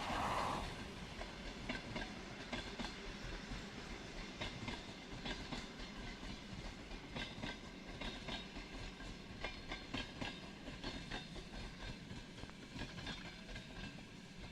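Passenger coaches' wheels clattering over rail joints as an EP2K-hauled passenger train rolls past, a run of irregular clicks over a steady rumble. A short burst of rushing noise comes right at the start.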